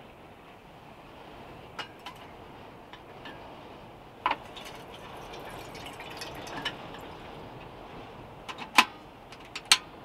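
Water poured from a bottle into a small enamel kettle, filling with a steady splashing. A few sharp metallic clicks and knocks, the two loudest close together near the end.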